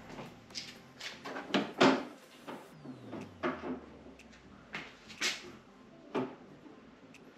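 Hood prop rod of a 2020 Mustang GT being unclipped and set into the raised hood: a series of sharp clicks and knocks, the loudest about two seconds in.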